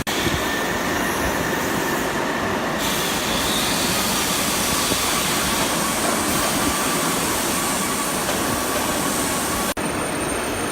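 Steady running noise of a CNC hydraulic press brake: an even hum and hiss with a faint high whine, briefly cut off near the end.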